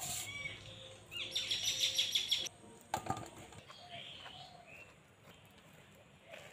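A small bird chirping in a quick, rapid trill for about a second, with fainter chirps later. There is a single sharp knock about three seconds in.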